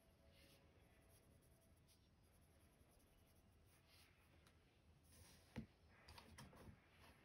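Faint scratching of a Prismacolor colored pencil shading on paper. About two-thirds of the way through come one sharp click and then a short run of clicks as the pencil is set down and another picked up.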